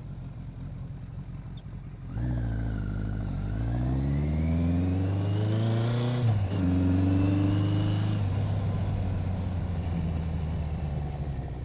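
1981 Kawasaki KZ1000J's 998cc air-cooled inline-four under way: it runs steadily, then opens up about two seconds in with the pitch climbing for a few seconds, drops sharply at a gear change about six seconds in, and pulls on steadily in the higher gear.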